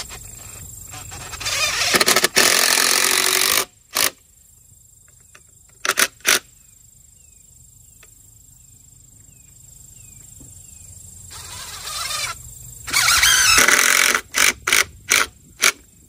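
DeWalt cordless drill pre-drilling pilot holes into wood. It makes two longer runs, one about two seconds in and one building up from about ten seconds in to a loud stretch near thirteen seconds. Each run is followed by several short blips of the trigger.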